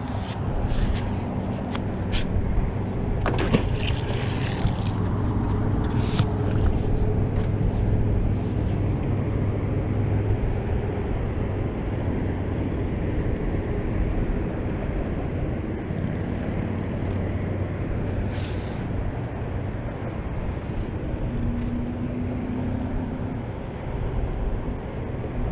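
An engine running with a steady low hum that is strongest in the first half and fades back, with a few sharp knocks and rustles in the first several seconds.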